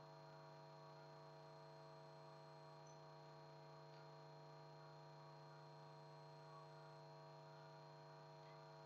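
Near silence with a steady electrical hum, unchanging throughout.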